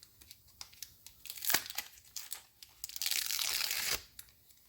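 Sticky tire-repair string plug being handled and peeled free: small crinkles and clicks, then a rasping peel lasting about a second, about three seconds in.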